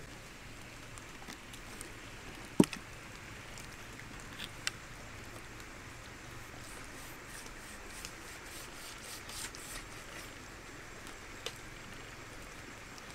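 A raw pork leg handled and cut with a knife on a wooden cutting board: soft ticks and light scrapes over a steady background hiss. One sharp knock about two and a half seconds in is the loudest sound.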